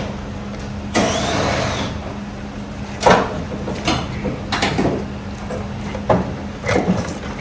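A series of irregular knocks and clanks, about six of them, over a steady low hum; the sound of parts and tools being handled during shop work on a car's rear axle.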